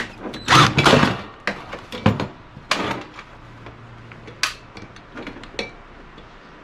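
One short burst from a power drill backing out a screw, then a series of separate knocks and clicks of the heater's metal parts being handled and pulled loose.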